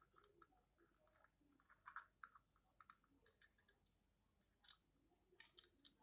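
Faint, irregular light clicks and taps as a green parrot works its beak at a toy block and nudges it over, with a few louder ticks scattered through.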